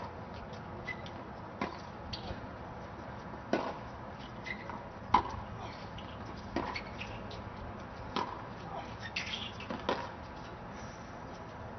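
Tennis balls popping sharply on a hard court, one short impact about every one and a half seconds, the loudest about five seconds in, over faint outdoor background noise.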